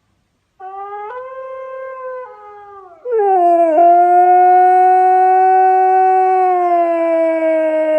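A dog howling: a first, quieter call starts about half a second in, steps up in pitch and falls away, then about three seconds in a much louder long howl begins, held steady and slowly sinking in pitch.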